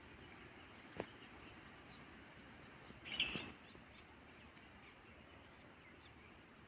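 Faint outdoor background noise, with a single sharp click about a second in and a brief high chirp a little after three seconds.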